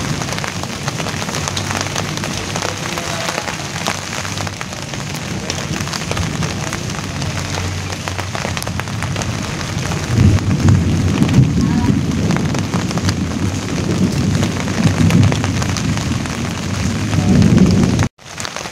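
Steady rain pattering on a broad banana leaf: a dense hiss of drops with many small separate taps. Low rumbles swell up about ten seconds in and again near the end, and the sound cuts out for a moment just before the end.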